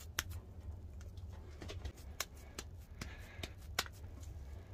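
Hands patting and pressing raw ground meat into a burger patty: faint, irregular soft slaps and clicks.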